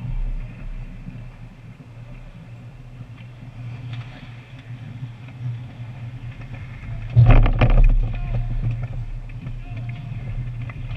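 Ice hockey play at the net: a loud burst of stick, skate and puck clatter about seven seconds in, lasting about a second, over a steady low hum.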